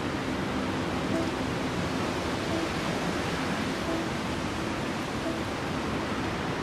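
Steady, even hiss-like outdoor noise, with a faint low tone recurring about every second and a half.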